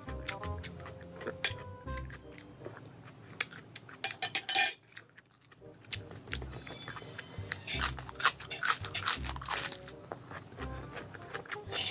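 Mukbang eating sounds: a metal spoon clinking and scraping on a ceramic plate, and crisp crunching and chewing of raw salad vegetables and lettuce, over faint background music. The loudest moment is a quick cluster of crisp clicks about four seconds in.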